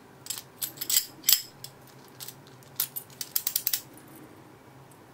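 Light metallic clicks and clinks of a padlock, its keys and lock-picking tools being handled, in two short flurries.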